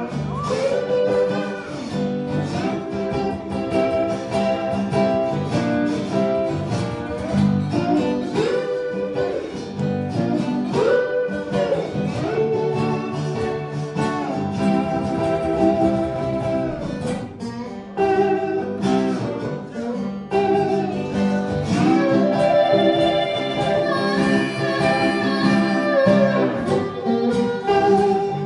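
Instrumental blues break on acoustic guitar and tenor guitar: a lead guitar playing notes that slide up and down in pitch over a plucked rhythm part. A harmonica comes in near the end.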